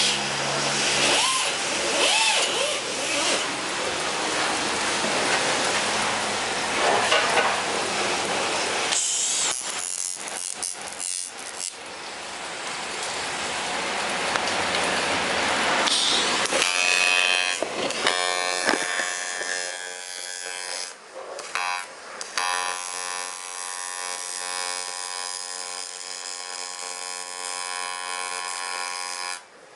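Workshop tool noise: a steady hissing noise for the first third, then a small electric tool motor running with a steady whine through the second half.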